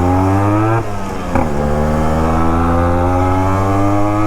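Yamaha RX two-stroke single-cylinder motorcycle accelerating through its inbuilt aftermarket silencer: the engine note climbs, drops sharply at a gear change about a second in, then rises slowly as it pulls through the next gear.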